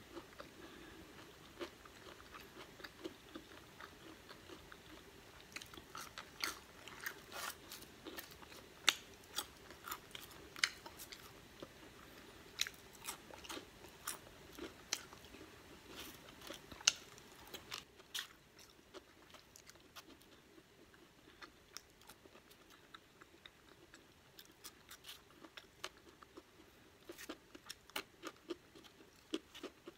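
Close-up eating sounds: chewing and biting on crinkle-cut french fries, a run of short, sharp crunchy clicks. They are busiest in the first half, grow sparse after about 18 seconds, then pick up again near the end.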